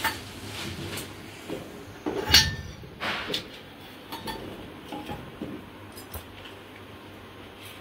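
Metal puja plates and small bowls clinking and knocking as they are handled. The loudest is a sharp metallic clink a little over two seconds in that rings briefly, followed by a few lighter taps.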